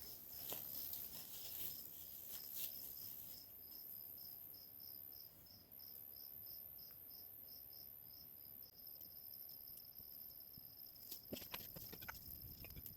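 Crickets chirping steadily, about three chirps a second, running into a continuous trill about nine seconds in, with a high steady insect hiss above. Scattered faint clicks and knocks near the start and near the end.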